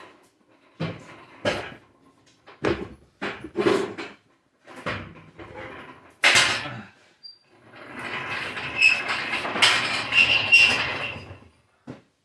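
Tools and metal engine parts knocking and clattering in a string of separate strikes, then about three and a half seconds of continuous rattling noise with a thin high tone in it, near the end.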